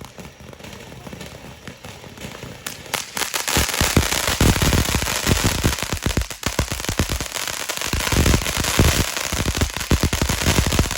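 Consumer firework going off: from about three and a half seconds in, a dense, rapid crackle of sharp pops that keeps up to the end.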